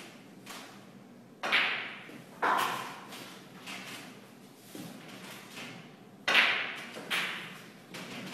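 Snooker balls clacking: four sharp knocks in two pairs about a second apart, with fainter knocks between, as cue and balls strike one another on the table.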